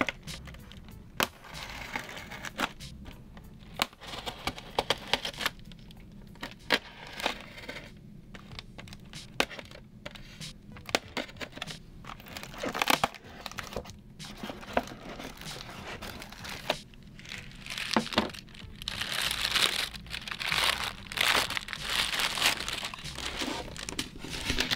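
Small knife blade cutting and scraping through a styrofoam (expanded polystyrene) packing block: scattered sharp squeaks, creaks and cracks of the foam. Near the end the foam is rubbed and pried apart in a denser crinkling stretch.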